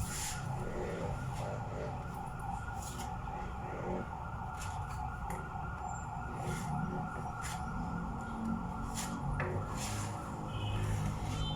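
Irregular scraping and rubbing strokes of hand work on a plywood tabletop, likely wood filler being worked in with a putty knife, over a steady hum.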